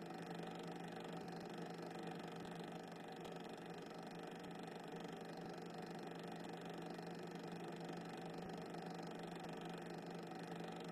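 Steady hiss with a constant low hum, unchanged throughout: the background noise of a silent 8mm cine film transfer, with no sound of the train itself.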